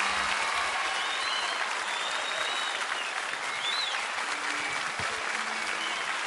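Studio audience applauding at the end of a song.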